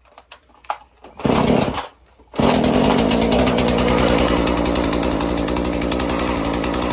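Husqvarna 235 two-stroke chainsaw: a few faint clicks and one short burst of engine, then about two and a half seconds in it starts and runs steadily at idle. The chain keeps turning at idle, a fault the owner means to chase with carburettor work.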